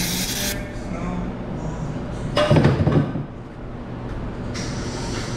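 An aerosol spray can hissing as cleaner is sprayed onto a steel oil pan, cutting off about half a second in. A short, loud knock follows about halfway through as the pan is handled, and a fainter hiss starts again near the end.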